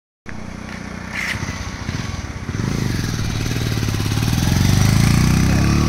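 A motor vehicle's engine running, growing steadily louder as it comes near, its pitch shifting near the end as it passes close by.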